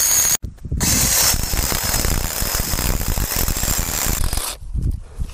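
Cordless drill-driver running under load as it bores a large screw into the end of a wooden fence brace. It stops briefly about half a second in, then runs again until near the end.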